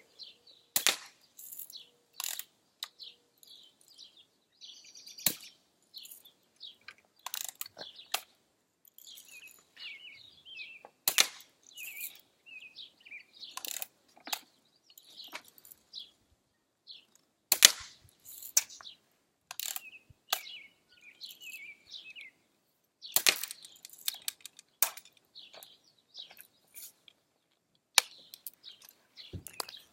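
BB gun being fired again and again, sharp single cracks spaced irregularly several seconds apart. Small birds chirp in the background.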